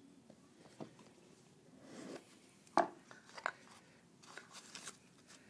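Product box and packaging being opened and handled: scattered light taps and clicks, one sharp click nearly three seconds in, then rustling.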